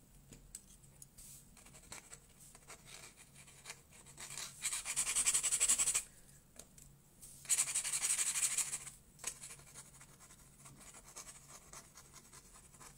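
Dip pen's metal nib scratching across watercolour paper in two bursts of fast scribbling, each a couple of seconds long, with lighter single pen strokes and taps between them.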